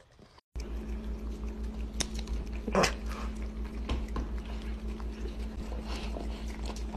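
A cat and a dog licking and eating spray cheese: wet lapping and smacking, with a few sharp clicks, over a steady low hum. The sounds start about half a second in.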